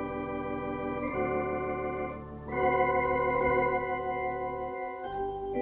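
Hammond C-3 tonewheel organ played: held chords over low sustained bass notes, changing chord about a second in, again near the middle where it gets louder, and once more near the end.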